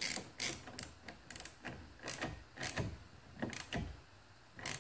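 Socket ratchet clicking in short bursts, about one every half second at an irregular pace, as it tightens the nut on a windshield wiper arm.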